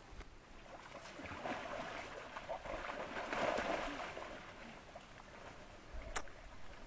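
River water sloshing and splashing, swelling up and dying away over a few seconds, with a single sharp click near the end.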